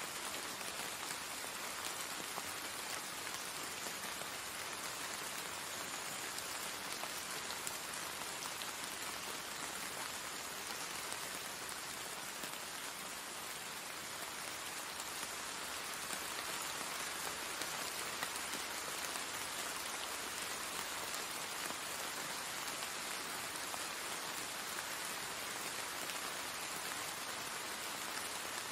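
Steady rain falling, an even hiss with a fine patter of individual drops.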